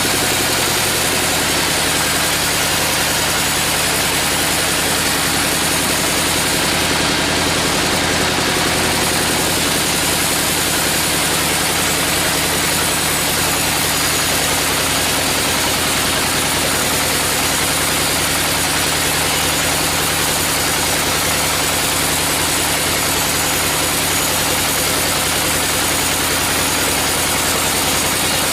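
Sawmill machinery running steadily: a constant engine drone under a continuous hiss, with no change in pitch or load.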